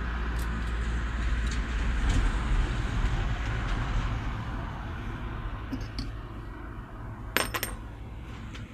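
A steady low rumble in the background. About seven seconds in, a flat steel disc drops from the clamp of a welding third-hand onto the metal table with a sharp clink and a quick second strike.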